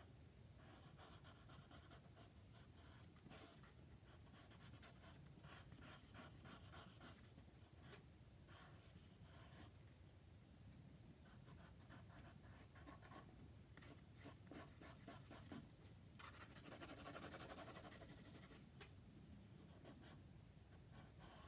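Faint scratching of a water-soluble graphite pencil drawing on dry sketchbook paper, in quick irregular runs of strokes, with a longer, louder stretch of scratching about 16 seconds in.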